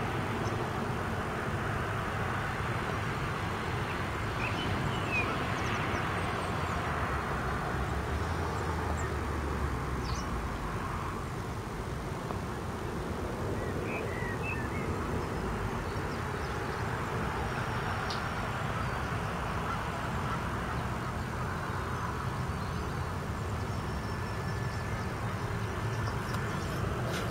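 Steady rumble and hiss of a jet airliner on final approach, still distant and slowly drawing closer. A few short bird calls come through about five seconds in and again about fourteen seconds in.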